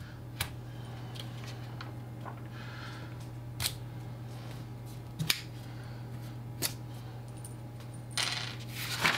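Pencil working over a paper sketch on a drawing board: faint scratching and four sharp taps, spread a second or two apart, over a steady low hum. A rustle of paper comes near the end.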